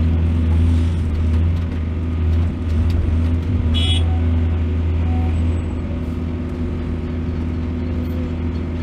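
Heavy diesel engine of earthmoving machinery running steadily with a deep, low hum, and a brief high squeak about four seconds in.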